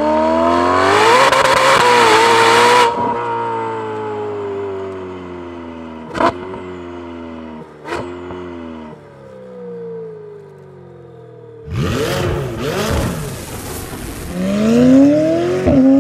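Ferrari 488 Pista's twin-turbo V8 through a Fabspeed Valvetronic dual-tone exhaust with sport catalytic converters, accelerating hard with rising pitch, then lifting off sharply about three seconds in. It then winds down with falling pitch and two sharp exhaust cracks, and pulls hard again near the end.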